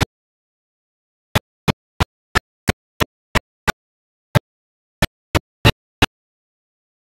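Short, sharp percussive hits in a steady beat, about three a second, with a break a little past the middle and dead silence between each hit.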